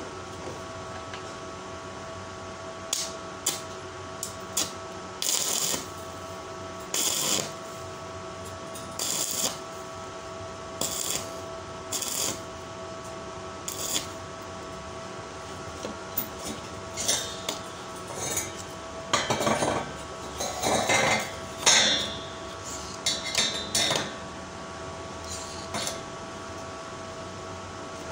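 Stick (arc) welder tack-welding steel strip for a hexagonal paving-block mould: a series of short arc bursts, each a fraction of a second to about a second long, with a few sharp metallic clicks between them, over a steady faint hum.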